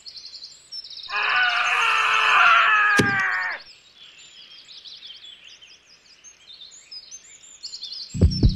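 Birdsong plays in the background throughout. About a second in, a loud, shrill, wavering cry lasts about two and a half seconds, with a sharp knock near its end. Just before the end come a few heavy thumps.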